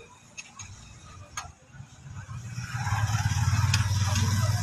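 An engine running with a low, evenly pulsing rumble that swells in from about halfway through and then holds steady. A few light metallic clicks of a wrench on the fuel-line fittings come before and during it.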